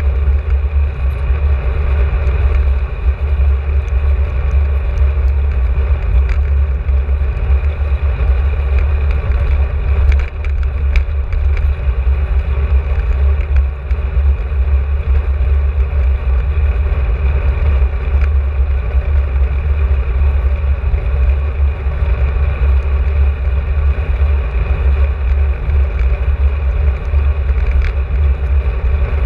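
Wind buffeting the microphone of a camera carried on a moving bicycle: a loud, steady, fluttering rumble, with an even road and tyre hiss underneath and a few faint clicks.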